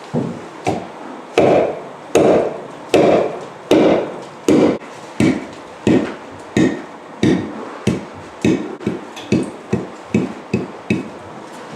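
Heavy hammer knocking out a pre-cut, drilled-through section of aerated concrete block wall. About twenty dull blows, roughly one a second at first, then quicker and lighter in the second half.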